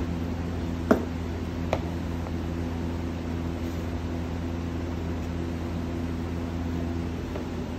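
Steady low room hum, like an air conditioner or fan running, with two light knocks about one and two seconds in.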